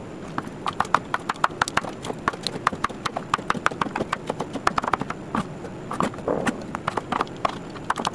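Chef's knife dicing cucumber on a wooden cutting board: rapid, uneven knocks of the blade against the board, several a second.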